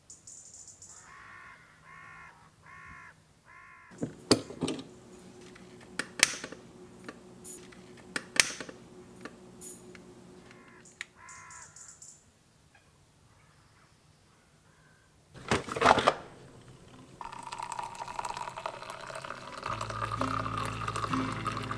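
A crow cawing four times in quick succession, with another caw later. Then a scatter of sharp knocks and clicks over faint running water and a steady hum, a loud brief rush of noise, and music coming in near the end.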